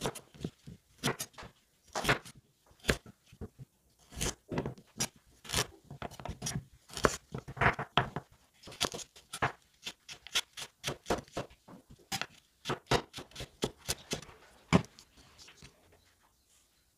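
Chef's knife slicing raw carrots on a bamboo cutting board: each cut is a sharp crunch and knock of the blade through the carrot onto the board, in uneven runs of about three to four cuts a second. The cutting stops shortly before the end.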